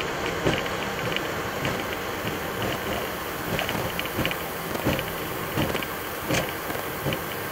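Airliner cockpit noise during the landing rollout: a steady rushing hiss, with light thumps about once a second as the wheels roll along the runway centreline.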